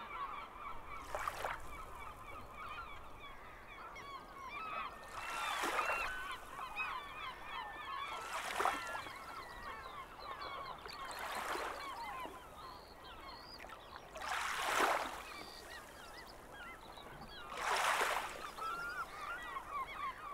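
Beach ambience: waves washing in about every three seconds, six times, with gulls calling throughout.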